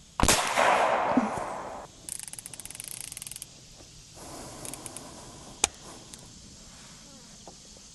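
Seneca Dragon Claw .50 caliber PCP air rifle firing on high power: a sharp report followed by a rush of air that fades over about a second and a half. A rapid ticking rattle follows, then a single sharp click a little over five seconds in as the rifle's action is worked.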